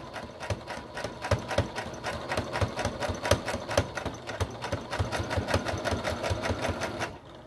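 Domestic electric sewing machine stitching steadily, its needle making a rapid, even ticking as it runs a top stitch along the fabric edge; it stops near the end.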